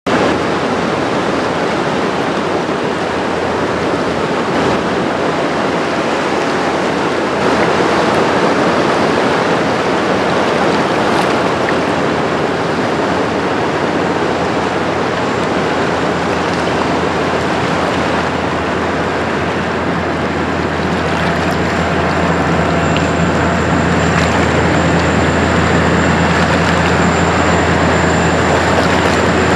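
Steady rushing and splashing of an inland motor cargo ship's bow wave and wash as the vessel passes close by, with a low steady hum from the ship's diesel engine that grows louder in the second half.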